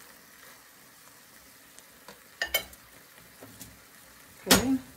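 Cabbage, mushroom and shrimp stir-fry sizzling faintly in a pan. About halfway through a spatula clatters down onto a plate, and near the end comes a louder sharp knock.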